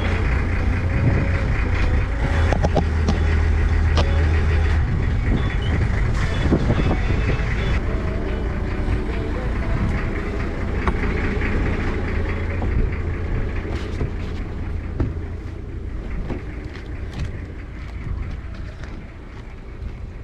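The engine of an old 1970s cabin cruiser running steadily under way, a deep drone that eases off toward the end, with scattered clicks and knocks over it.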